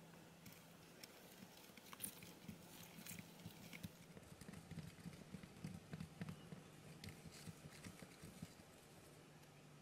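Chopstick stirring a water-and-candy-powder mix in a small plastic cup: faint soft clicks and taps against the cup wall, busier from about four seconds in.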